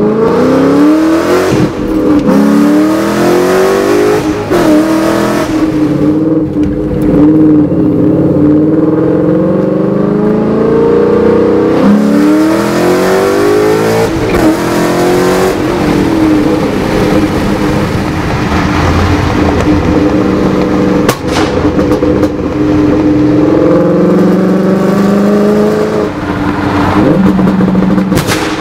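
A 2013 Ford Mustang GT's 5.0 V8 heard from inside the cabin through BBK long-tube headers, an off-road X-pipe, a resonator delete and Borla S-Type mufflers. The engine revs up and eases off again and again as the car drives, with several sharp cracks along the way.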